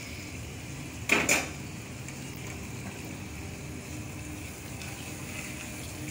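A spoon clatters briefly against a stainless steel pot about a second in, over a steady low sizzle of onion-tomato masala frying in the pot as it is stirred.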